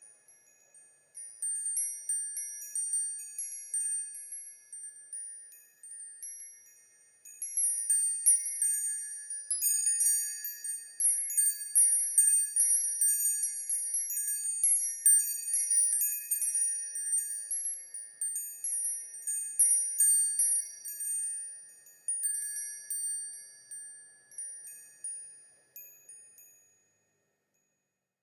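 Wind chimes tinkling with high, bright metal tones struck irregularly. The strikes come sparse at first, grow busy and overlapping in the middle, then thin out and die away shortly before the end.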